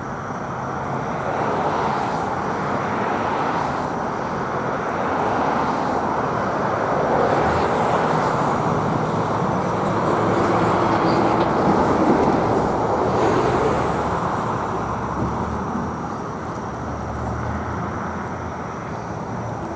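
Road traffic going by: a steady wash of tyre and engine noise that swells as a vehicle passes close through the middle, then eases off.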